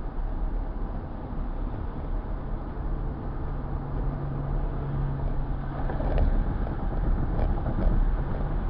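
Steady road and engine noise inside a moving car, with a low hum that comes in a couple of seconds in and fades out after about six seconds.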